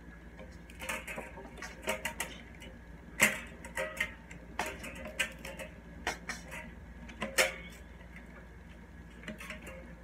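Irregular clicks and light knocks of toy drum-set parts being handled and taken out of their packaging, with two louder knocks about three and seven seconds in, then only a few faint clicks.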